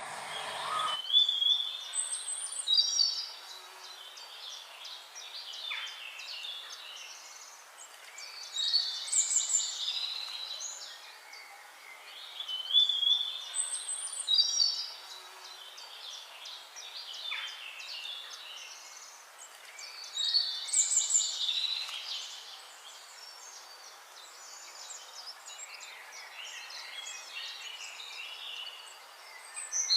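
Birdsong: a bird repeats a short, loud phrase of high chirps and whistles every few seconds, with fainter chirping from other birds in between.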